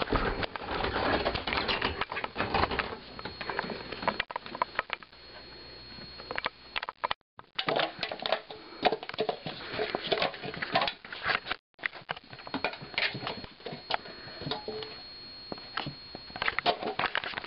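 Irregular light clicks, taps and scuffles with no steady rhythm. The sound cuts out to silence briefly twice, about 7 and 12 seconds in.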